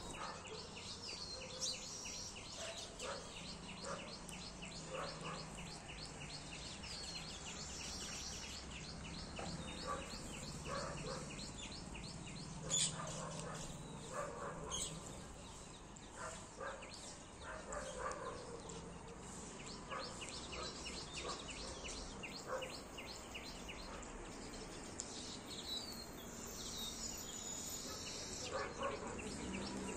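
Small birds chirping and calling, with a fast, even run of high ticks through the first half and a few gliding high notes.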